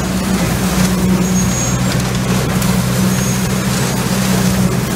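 Truck-mounted leaf vacuum running at work: a loud, steady drone with a strong low hum under a rush of air as its suction hose pulls leaves up from the curb.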